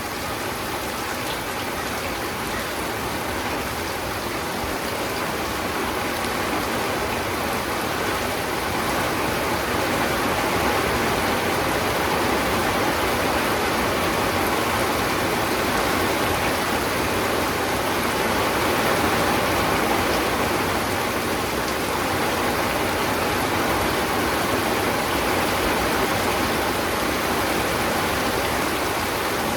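Steady rainfall, an even dense hiss of rain pattering on surfaces, swelling slightly about a third of the way in.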